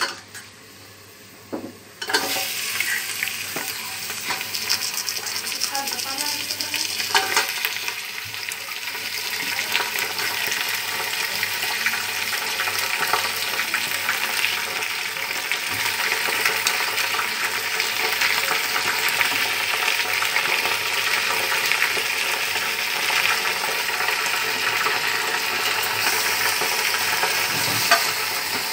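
Raw mutton pieces sizzling in hot oil with golden-brown fried onions in an aluminium pressure cooker. The sizzle starts suddenly about two seconds in and then runs as a steady hiss, with a few knocks in the first seconds after it starts.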